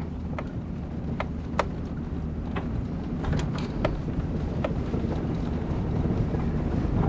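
A four-wheel-drive car's engine running steadily under load as it climbs a rocky dirt track in four-wheel drive, towing a trailer, with scattered sharp clicks and knocks. It grows a little louder near the end.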